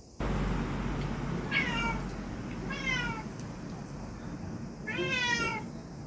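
A cat meowing three times, short calls that fall in pitch, over a steady low background rumble.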